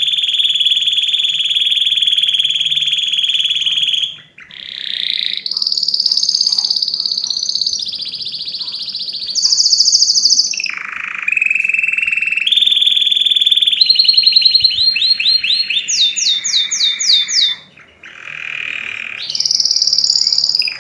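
Domestic canary singing loudly in long rolled trills that jump to a new pitch every second or two, broken by a series of quick sweeping notes about two-thirds of the way in and two brief pauses.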